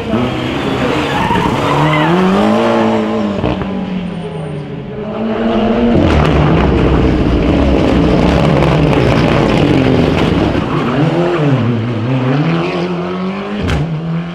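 Ford Escort RS Cosworth rally car's turbocharged four-cylinder engine driven hard, its revs falling and rising again several times as it brakes, shifts and accelerates, loudest in the middle. Tyre squeal comes and goes.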